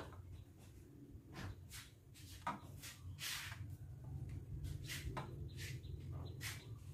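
Faint scattered taps, clicks and rustles as a baby monkey shifts on a plastic scale and tugs at a cord, over a low steady hum.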